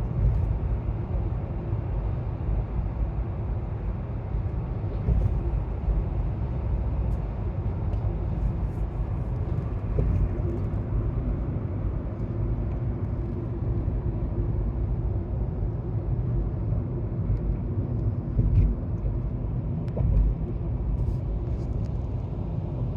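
Car travelling along a highway: a steady low rumble of road and engine noise.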